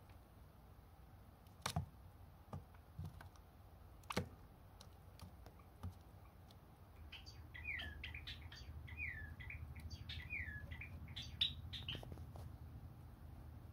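Java sparrows calling: a quick run of short chirps, each sliding down in pitch, starting about seven seconds in. Before them, a few scattered sharp clicks.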